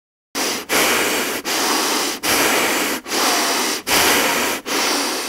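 A person breathing in and out through the mouth and nose in quick, even succession, each breath a little under a second long with brief pauses between. The breathing starts a moment after silence.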